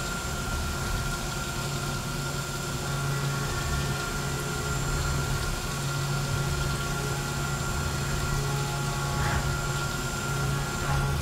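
Five-axis CNC mill cutting a sculpted metal part with a small end mill under flood coolant. A steady machine drone carries a constant high tone, with the hiss of coolant spraying over the work.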